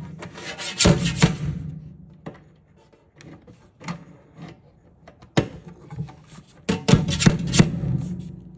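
Plastic sink-fitting parts being handled and worked into place: clusters of sharp knocks and scraping about a second in and again near the end, with scattered clicks between.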